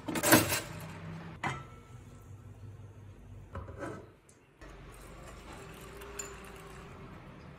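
A sharp click about a third of a second in as the pop-up toaster's lever is pressed down, and a smaller click about a second later, followed later by a faint steady hiss.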